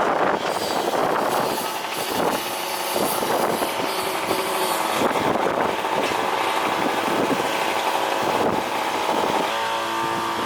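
A motor vehicle's engine running steadily under a wash of wind-like noise; its steady hum grows clearer about nine seconds in.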